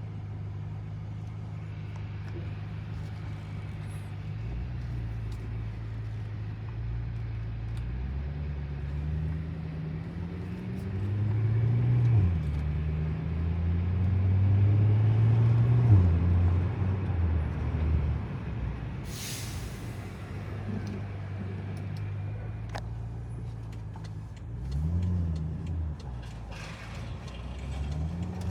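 BMW M6 engine pulling up through the revs, with the pitch dropping sharply at two gear changes and rising again in a short burst near the end. About 19 seconds in there is a brief high hiss.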